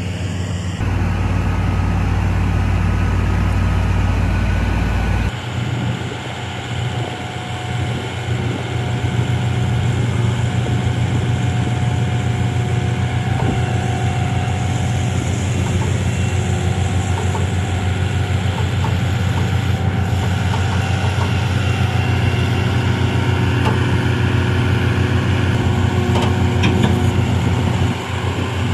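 Heavy diesel engine running at a steady idle, a low even hum, with a deeper rumble underneath that cuts off about five seconds in.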